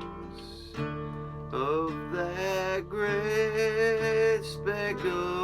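Acoustic guitar accompanying a singer holding long, wavering notes: the drawn-out closing words of a country gospel song.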